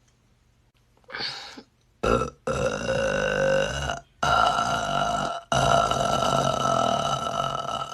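A woman's long, drawn-out deliberate burp at a steady pitch. It begins about two seconds in and runs in three or four long stretches with brief breaks until nearly the end, after a short sound about a second in.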